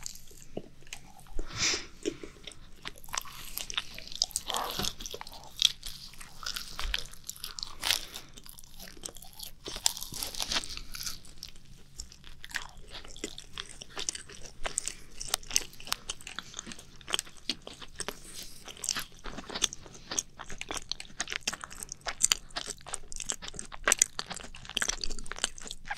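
Macarons being bitten and chewed close to the microphone: the crisp shells crunch and crackle in quick, irregular clicks, with soft chewing between bites.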